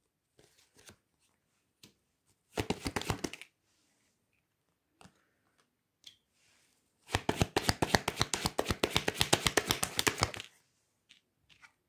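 A deck of Lenormand cards shuffled by hand, a rapid run of card flicks. A short burst comes about two and a half seconds in and a longer one of about three seconds starts around seven seconds in. Between them a few soft single taps sound as cards are laid on the wooden table.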